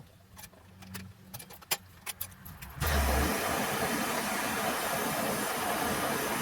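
A few faint clicks, then about three seconds in a MAPP gas torch lights with a low pop and burns with a steady hiss, heating the steel rod toward red hot.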